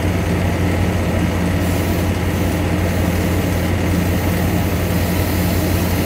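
Chevrolet car engine idling steadily with the air conditioning running, a constant low drone. About a second and a half in, a faint high hiss joins it as air and refrigerant are bled from the gauge manifold's charge hose.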